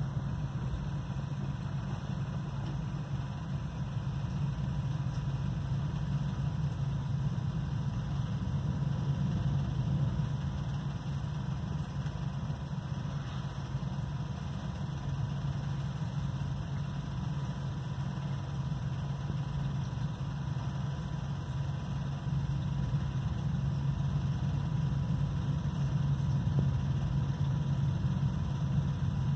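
Steady low hum of running aquarium equipment, even and unbroken, with a faint higher whine.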